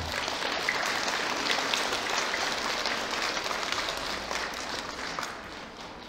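Audience applauding, fading away over the last two seconds or so.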